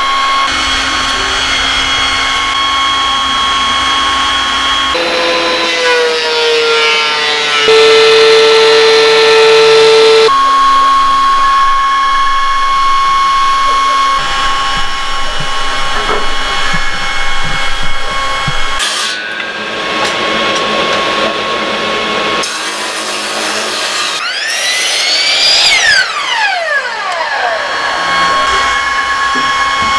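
Power tools running in a woodworking shop, in several edited stretches: a steady motor whine from the CNC router's spindle. About 24 seconds in, a miter saw's motor spins up and then winds down.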